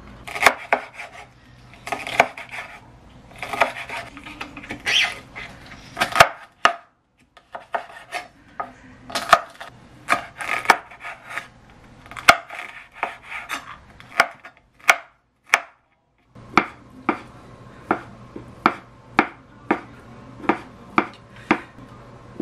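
Chef's knife chopping on a bamboo cutting board: sharp knocks of the blade on the wood in irregular runs as green chili peppers are cut, with a steadier run of about two chops a second near the end.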